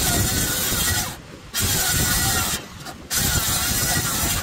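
Circular saw cutting into 2-inch-thick mahogany hardwood, making a shallow pass along a curved line. It runs in three cuts of about a second each, with the saw easing off briefly between them.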